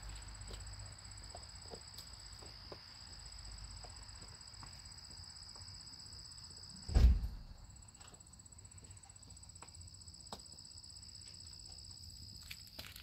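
Dog chewing on a pig snout, with scattered faint crunches, over a steady high drone of insects at two pitches. One loud low thump about seven seconds in.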